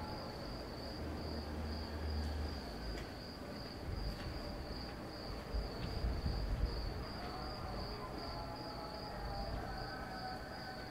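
Insects trilling in one steady high note that pulses slightly, over a low distant rumble.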